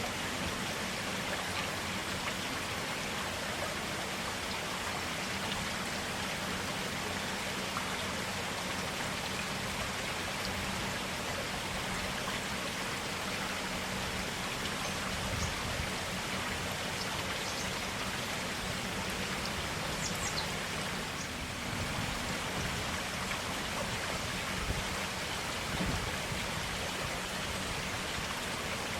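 Forest stream flowing: a steady rush of running water, with a few small splashes or drips.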